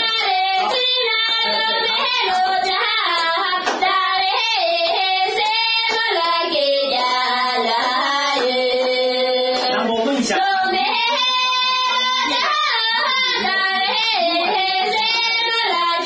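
A voice singing a melody with long held notes.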